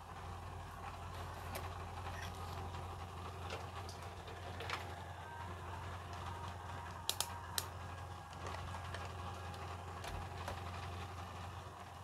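Steady low hum at a repair bench with scattered small clicks and taps of handling, as a charger cable and a multimeter are set up. A quick cluster of three sharp clicks a little past the middle is the loudest sound.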